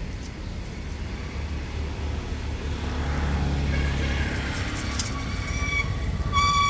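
A steady low rumble underneath, swelling in the middle. From about two-thirds of the way in, young long-tailed macaques give high-pitched squeals, the loudest one at the very end.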